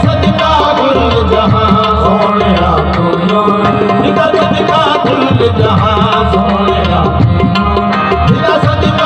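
Qawwali music: tabla playing a steady, dense beat under sustained harmonium tones and a wavering sung melody.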